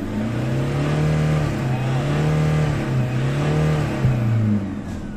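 Toyota Hilux 1KD-FTV 3.0-litre four-cylinder common-rail turbodiesel free-revved, its pitch rising and falling about three times up to around 4000 rpm, then dropping back toward idle near the end. It is a test run after an ECU repair for a P0093 fuel-system large-leak fault, and the engine holds its revs without stalling.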